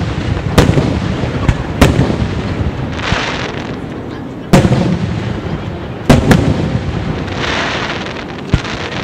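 Aerial firework shells bursting overhead: about six sharp booms at irregular intervals of one to three seconds, each trailing off in a low rolling rumble. Twice between the booms comes a hissing crackle of burning stars.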